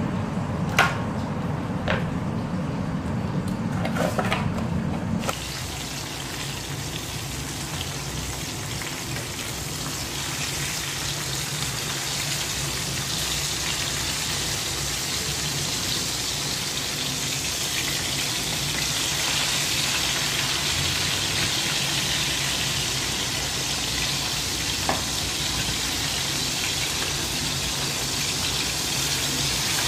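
Knife knocking on a cutting board three times while cutting pork. Then, after a cut, whole fish frying in hot oil in a pan: a steady sizzle that grows stronger about ten seconds in, with a single light tap near the end.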